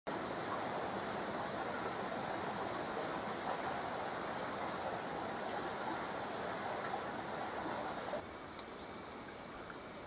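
Shallow brook running over stones: a steady babbling rush of water. About eight seconds in the water sound cuts off abruptly, leaving quieter woodland background with a faint, short high chirp.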